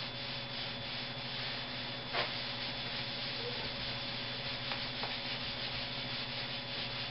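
A board eraser being rubbed back and forth across a board in repeated strokes, with a brief knock about two seconds in.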